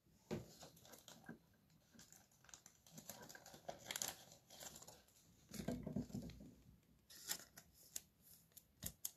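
Faint rustles and small clicks of hands handling a trading card and working it into a soft plastic penny sleeve, coming in short scattered clusters.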